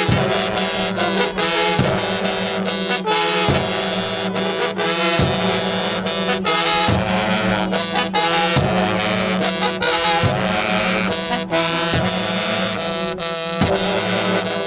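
Brass horns playing held notes over a heavy bass drum struck about every 1.7 seconds, with quicker percussion between the beats: dance music for a Shembe sacred dance.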